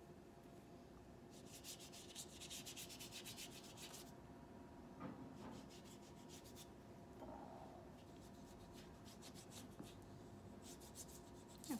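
A paintbrush scrubbing watercolor paint back and forth, making faint, rapid, scratchy rubbing strokes. There is a spell from about one to four seconds in and a fainter one near the end.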